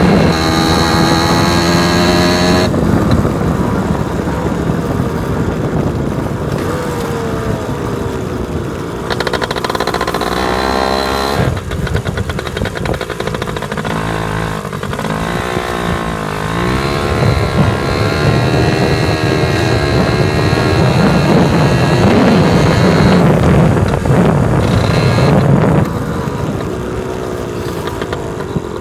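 Jianshe engine under way, revving up and easing off again and again with the throttle, its pitch rising and falling, with a lighter, lower-pitched stretch in the middle.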